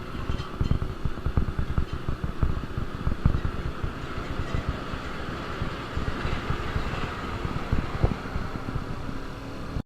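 KTM RC200 BS6's single-cylinder engine running, its exhaust giving a rapid, uneven pulse, with a steady hiss over it.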